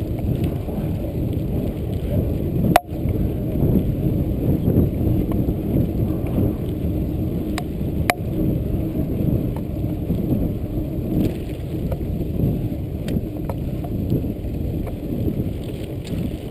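Mountain bike riding along a dirt and gravel track: a steady low rumble from the ride, with a few sharp clicks and knocks as the bike rattles over bumps. The loudest knock comes about three seconds in.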